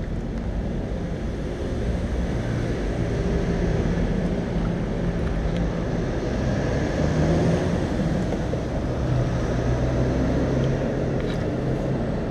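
Steady city road traffic: car engines running with a low hum that swells and fades as vehicles pass.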